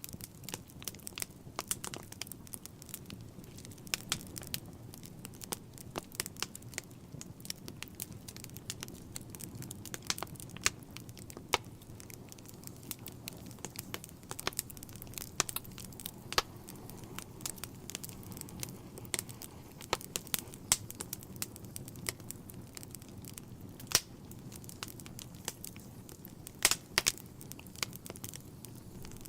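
Log fire burning in a fireplace: irregular sharp crackles and pops over a low, steady rush of the flames.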